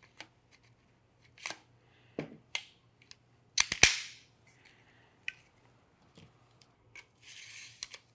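Sharp clicks and snaps as a Peak Design Travel Tripod's carbon fiber leg sections are fitted back together, the leg cam closed and the shroud snapped on. The loudest snap comes about halfway through, and a short scraping rub follows near the end.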